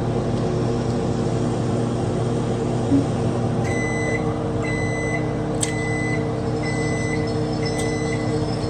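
Steady electrical hum of an appliance. From about halfway through, a high electronic beep sounds five times, roughly once a second, while the hum carries on.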